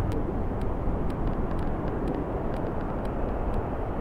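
Steady rush of a fast, turbulent river, its water churning and splashing below.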